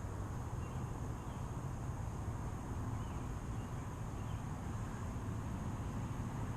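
Steady low outdoor background rumble with a thin steady high hum and a few faint chirps above it.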